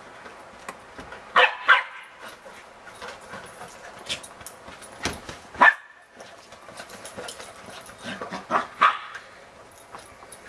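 West Highland white terriers barking and yipping in short, sharp calls while playing with a ball: a pair about a second and a half in, two more around five seconds, and a quick run near 8.5 s. Light taps and scuffles sound between the barks.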